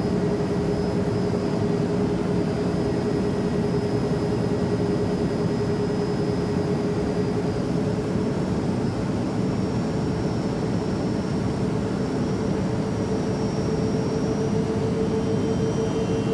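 Steady jet airliner noise in flight: an even rush of air and engine noise with a constant hum, the hum edging slightly higher in pitch over the last few seconds.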